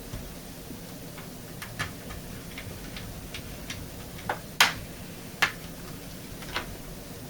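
Irregular light clicks and taps of small hard objects being handled, about a dozen, with two louder clicks near the middle.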